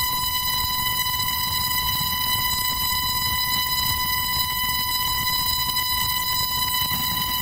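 Small Tesla coil arcing onto a plastic toy car, its sparks making a steady, high-pitched buzz.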